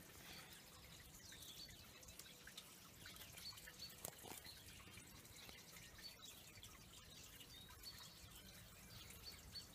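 Near silence: faint water dripping and trickling in a stone wash-house basin, with a few faint high chirps.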